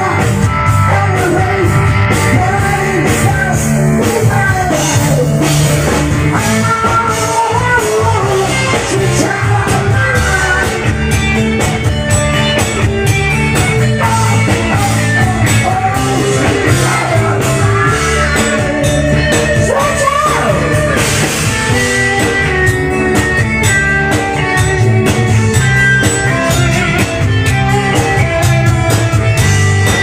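Live rock band playing loud and steady: a male singer over electric guitar through a Laney amplifier, bass guitar and a drum kit.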